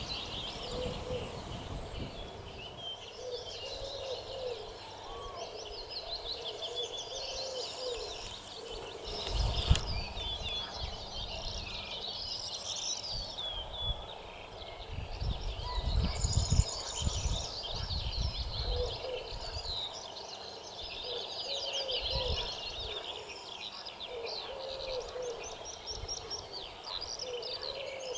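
Spring chorus of many songbirds, chirping and trilling continuously, with a low cooing call repeated every few seconds underneath. Two brief low rumbles about ten and sixteen seconds in are the loudest sounds.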